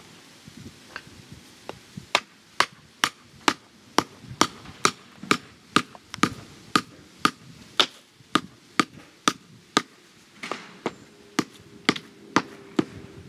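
Hand hammer striking repeatedly at ground level, sharp knocks about two a second, turning slower and uneven near the end.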